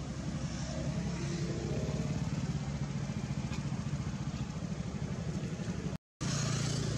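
A small engine running steadily, a low buzzy drone. The sound cuts out completely for a moment about six seconds in.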